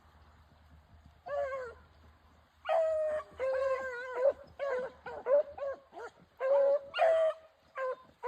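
Beagles baying as they run a rabbit's trail: one bawl about a second in, then a string of short, overlapping bawls and chops from more than one hound.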